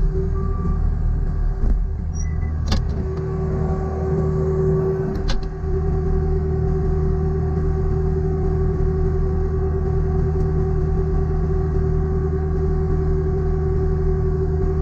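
Diesel engine of a John Deere 329E compact track loader running steadily, with two sharp knocks about three and five seconds in.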